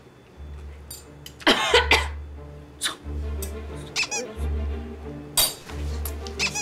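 Background music with a steady low bass beat, overlaid with several short squeaky sound effects; the loudest squeak comes about a second and a half in.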